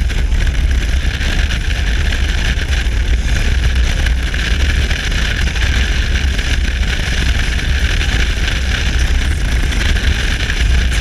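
Motorcycle cruising at highway speed: heavy wind rush over the microphone on top of a steady low engine rumble, unchanging throughout.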